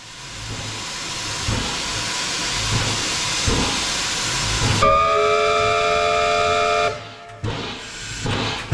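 W class steam locomotive: steam hissing, growing louder for about five seconds. Then comes a whistle blast of several notes at once, about two seconds long, which cuts off sharply. A few low, uneven thumps follow near the end.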